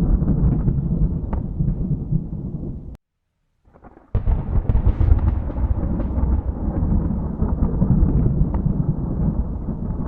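Thunder rumbling continuously, with no rain. It cuts off abruptly about three seconds in for roughly a second of silence, then comes back suddenly with a brighter clap and rumbles on.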